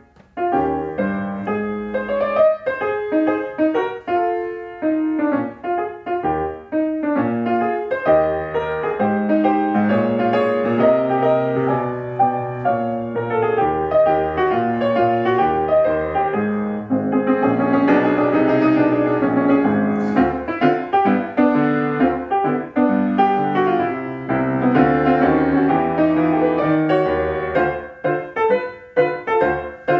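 Grand piano played solo: a flowing piece of chords and melody, with sparser notes for the first several seconds, then fuller and steadier.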